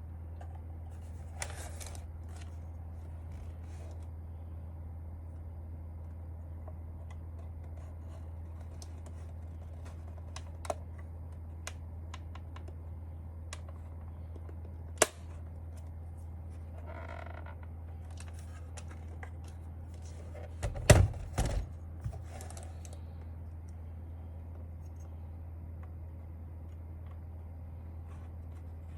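Scattered sharp clicks and plastic taps from handling the parts of a mechanical keyboard being taken apart, with a cluster of louder knocks about 21 seconds in, over a steady low hum.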